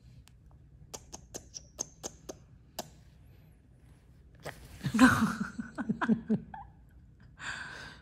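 A quick run of about eight kissing smacks with a squeaky edge. About a second and a half later comes the loudest part: a man's short, breathy laugh-like vocal burst. A brief breathy hiss follows near the end.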